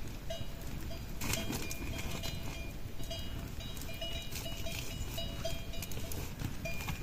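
Small bells on a flock of sheep ringing and clinking irregularly, many short chimes one after another, with a few sharp knocks over a low steady rumble.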